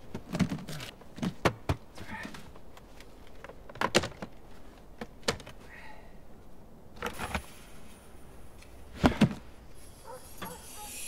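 Irregular clunks and knocks of things being moved about in a car's open boot, with a few sharper knocks standing out, the loudest about nine seconds in.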